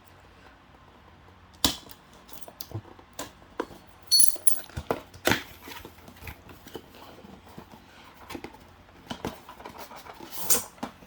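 A cardboard box being opened by hand: scattered rustles and scrapes with sharp clicks and snaps. The loudest come about two, four and five seconds in and near the end.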